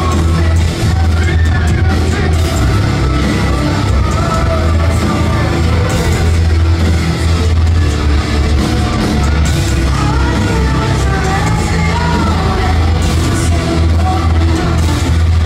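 Live rock band playing loud through a club PA: a singer's sung and shouted vocal line over heavy bass and drums with frequent cymbal hits.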